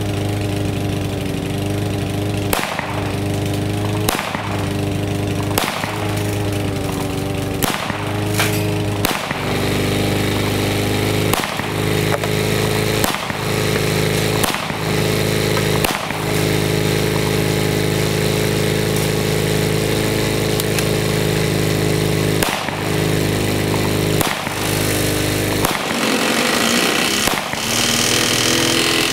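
Pistol shots from a 7.62×25 mm Tokarev, about a dozen sharp reports at irregular intervals, fired into a running lawn mower engine, which keeps up a steady drone between them.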